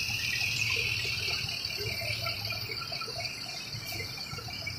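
Mercedes-Benz coach's diesel engine running as the bus pulls away, a low steady rumble that fades slightly toward the end, over a steady high hiss.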